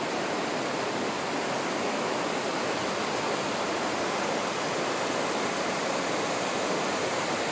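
Shallow river rushing over a rocky riffle, a steady, even rush of water.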